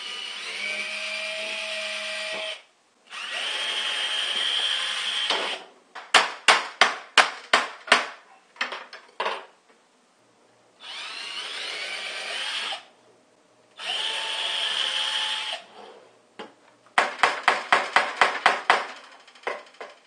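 Cordless drill boring 1/16-inch pilot holes through thin wood edging in two short runs, followed by a rapid string of about eight hammer blows driving small nails. The pattern repeats: two more drill runs, then another quick series of hammer blows near the end.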